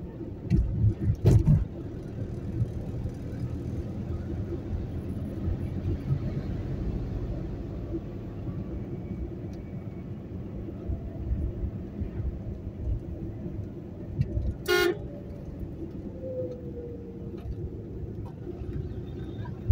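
Car driving on a road, heard from inside the cabin: a steady low engine and tyre rumble. Heavy low thumps come about a second in, and a short vehicle horn toot sounds about three-quarters of the way through.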